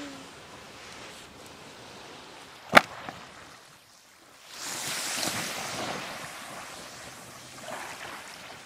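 Small waves washing up a sandy beach: a soft hiss of surf that swells a little under halfway through and slowly dies away. A single sharp click comes shortly before it.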